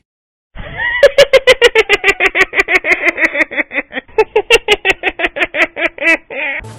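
A rapid string of short, pitched, voice-like yelps, about five a second, lasting over five seconds. It starts about half a second in and stops shortly before the end.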